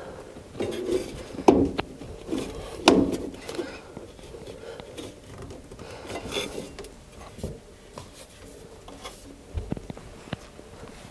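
Scattered knocks, scrapes and rubbing from hands and tools working on furnace duct and sheet-metal parts, with two sharper knocks in the first three seconds.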